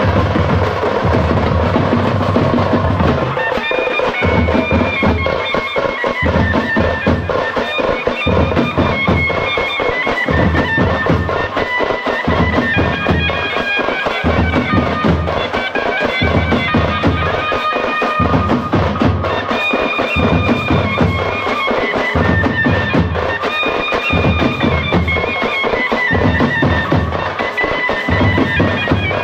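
Traditional festival band music: a shehnai-type double-reed pipe plays a wandering melody over tamte frame drums beating a steady, repeating rhythm.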